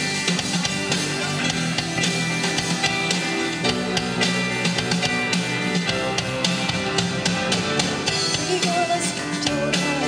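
Live band music with drum kit and guitar, played without vocals while the singer dances.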